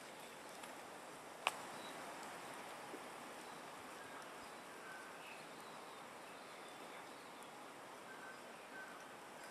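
Quiet forest ambience: a steady faint hiss with a few faint, short, high chirps, and one sharp click about a second and a half in.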